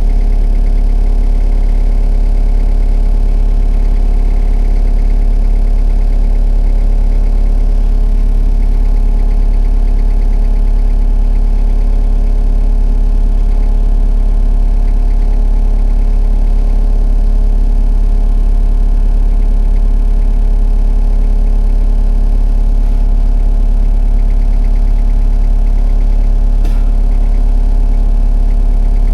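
Excavator engine running steadily at an even, constant speed, a continuous drone with a heavy low end.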